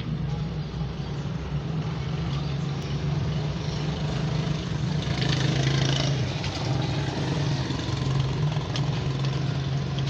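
An engine running steadily with a low hum, with some light clatter about halfway through.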